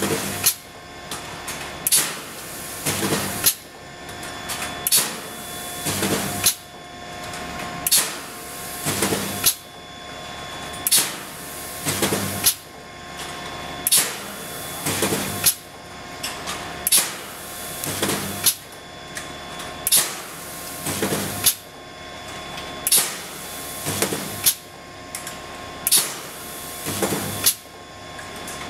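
Double-wire mesh welding machine working in a steady cycle about every three seconds: each cycle brings a sharp metallic clank and then a longer, rougher clatter as the welds are made and the mesh steps forward. A steady electrical whine runs underneath.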